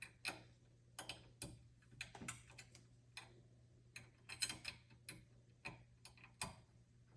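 Faint, irregular small metallic clicks, about one or two a second, of a hex key working the set screws of a metal door handle, over a faint steady low hum.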